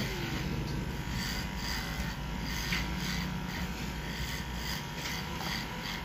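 Electric hair clippers running steadily, shaving the fur on a dog's belly.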